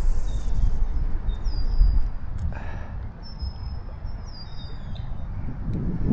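A songbird calling repeatedly: a high whistled note that slides down and then holds, about every one and a half to two seconds, over a steady low rumble.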